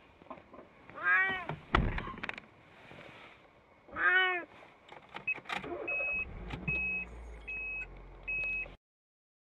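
Elderly cat meowing loudly twice from inside a plastic pet carrier, about one and four seconds in. The vet took such loud crying itself for abnormal behaviour, a sign of dementia. Later come four short, high, even beeps about a second apart over a low rumble.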